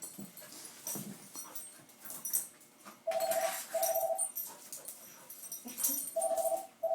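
Two puppies play-wrestling: scuffling and snuffling, with two pairs of short, even-pitched squeaky tones partway through.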